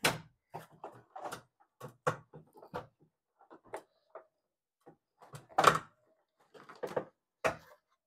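Plastic clicks and knocks from the top panel of a Whirlpool top-loading washing machine as it is prised up and lifted off the cabinet: a string of short, irregular knocks, the loudest a little past halfway.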